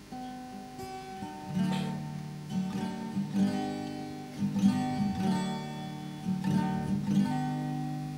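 Acoustic guitar strumming and picking chords at an even pace, the instrumental introduction before the singing begins.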